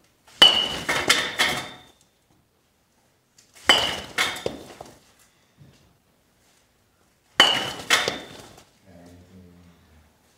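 A baseball bat hitting a ball off a batting tee three times, about three and a half seconds apart, each sharp crack followed by a second or so of rattling and clinking as the ball hits the net.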